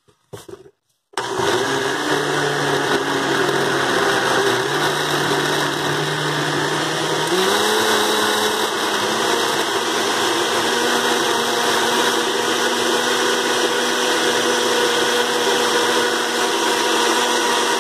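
Countertop blender starting about a second in and running steadily, puréeing chopped spinach with water; its motor pitch rises a step about seven seconds in.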